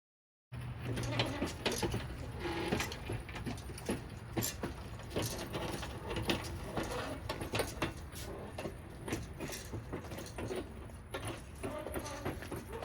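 Continuous light clinking and knocking of metal, small parts and tools being handled, over a steady low hum; it starts suddenly about half a second in.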